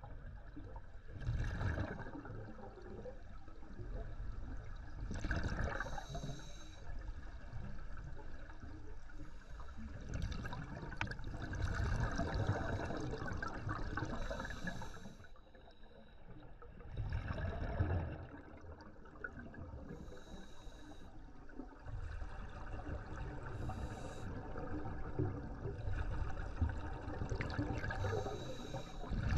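Scuba diver breathing through a regulator underwater: a surge of hissing and bubbling comes every few seconds as breaths are drawn and exhaled, with a steady low rumble of water in between.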